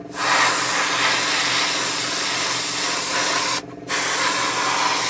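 Airbrush spraying with a steady hiss that cuts out for a moment about three and a half seconds in, then starts again.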